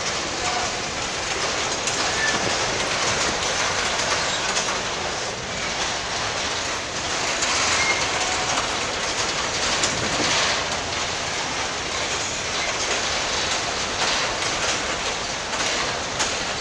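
Freight train wagons rolling past: the steady rumble and rattle of steel wheels on the rails, with the clickety-clack of wheels over rail joints.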